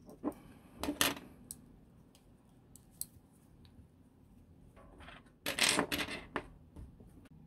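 A few light clicks and taps of handling a mouse circuit board, then a burst of metallic clatter a little past halfway as a steel folding multi-tool with pliers is handled and set down on a mat.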